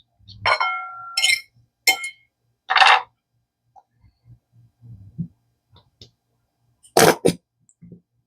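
Kitchen utensils clinking and knocking while Dijon mustard is spooned out. There is a ringing clink about half a second in, then single sharp knocks, with the loudest two in quick succession near the end.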